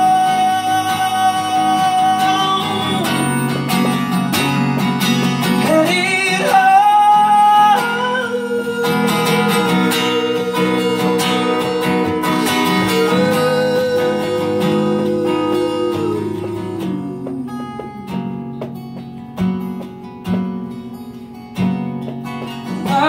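A man singing long held notes with slides between them over a strummed acoustic guitar. The voice stops about 17 seconds in, and the guitar carries on alone in sparser strums.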